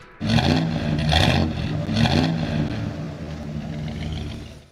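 Car engine revving three times in quick succession, then running on and fading out abruptly near the end.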